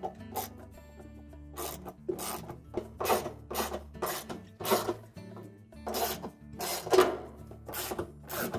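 Socket ratchet tightening the bolts on a washer's outer tub, in short clicking strokes about two a second. Soft background music underneath.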